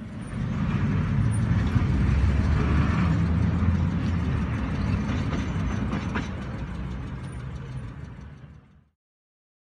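Steady vehicle road noise: a dense low rumble with hiss over it. It fades toward the end and cuts off abruptly just before the end.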